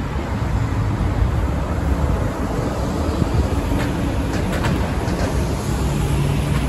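Bus engine running with a steady low rumble.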